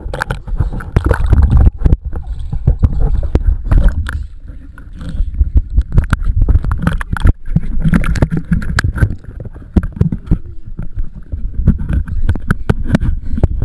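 Pool water splashing and sloshing around a waterproof action camera at the water's edge as a child jumps in and swims beside it, with many sharp knocks against the camera housing.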